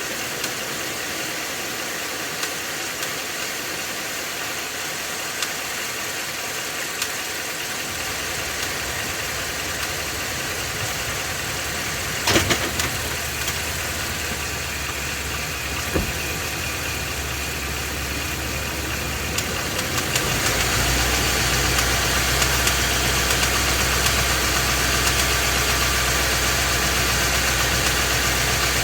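Ford 7.3-litre Godzilla gas V8 running from underneath the truck, held on the brake in gear, with an abnormal mechanical noise and knocking from the engine. There is a sharp click about twelve seconds in, and the engine gets louder and deeper about twenty seconds in.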